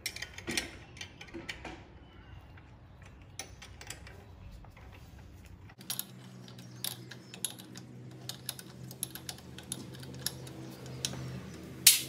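Light metallic clicks and clinks of a combination wrench working the half-inch bolt that holds a Brembo brake caliper's center pin, loosening it. The clicks come irregularly, with one sharp, louder clink near the end.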